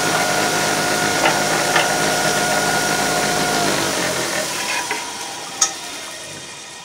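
Electric tile saw running steadily with a motor whine, then switched off a little over halfway through and spinning down, its sound fading away gradually. A single sharp click near the end.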